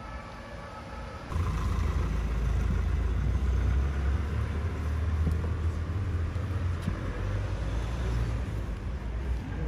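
Outdoor street ambience: a steady low rumble under a noisy hiss, like traffic, coming in suddenly about a second in.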